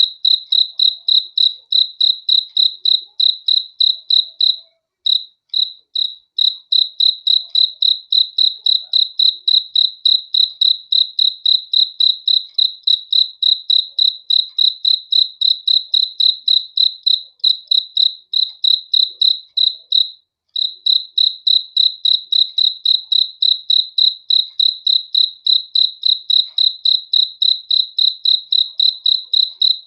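A cricket chirping: a steady, high-pitched, evenly repeated chirp at about three to four chirps a second, breaking off briefly twice.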